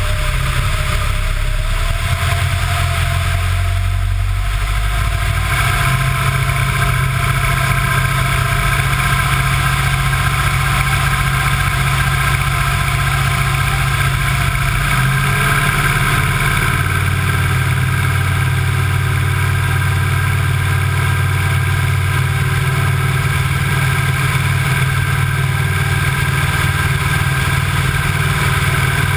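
Wittman Tailwind's piston engine and propeller running steadily in flight, with a constant rush of wind over the microphone. The engine note shifts about five seconds in and again about fifteen seconds in, as the aborted landing turns into a go-around.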